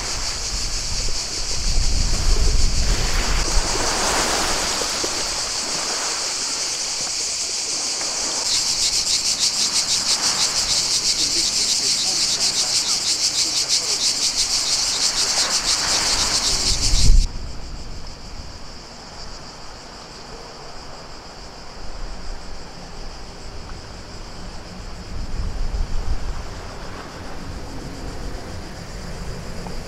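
Cicadas buzzing loudly in a steady high-pitched drone that turns into a rapid pulsing chorus, cutting off suddenly a little past halfway. After that a softer hiss of wind and lapping water remains, with cicadas faint.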